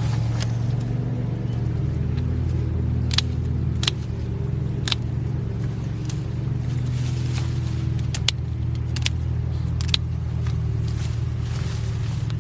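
Steady low drone of an engine running throughout, with about half a dozen sharp snaps of dead raspberry canes being trimmed out.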